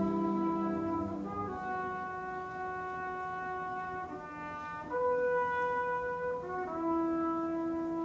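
Symphony orchestra, strings and brass together, playing slow held chords that move to new notes every second or so.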